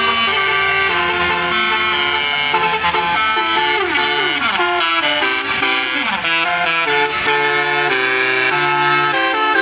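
Bus basuri musical air horn playing a melody: held notes that step from one pitch to the next, with several falling slides in pitch.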